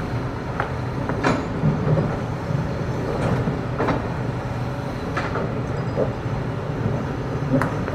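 Hitachi hydraulic excavator's diesel engine running steadily under load, with irregular sharp metal clanks and knocks as the bucket digs into hard rock.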